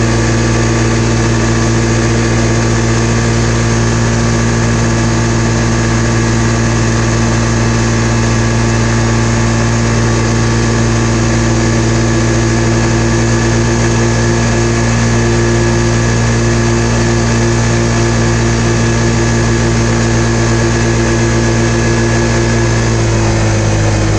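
Polaris RZR 570's single-cylinder engine running steadily at high revs, about 6,900 rpm, while cruising at around 35 mph through a CVT fitted with a Dalton clutch kit. The pitch drops a little near the end as the revs ease to about 6,500.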